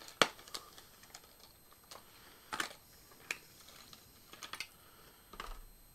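A small crankbait being handled and taken out of its plastic packaging: a string of irregular light plastic clicks and short rustles.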